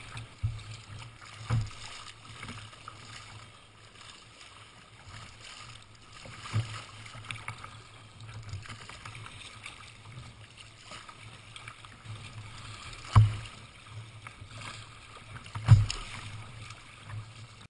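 Choppy water splashing against a sea kayak's hull, with a few louder slaps of waves on the bow, the biggest about 13 seconds in and near the end.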